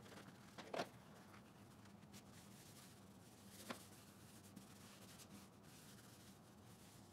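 Faint rubbing of a paper shop towel wiped across the plastic case of a Honda EU2000i generator, with two light knocks, one about a second in and one near four seconds.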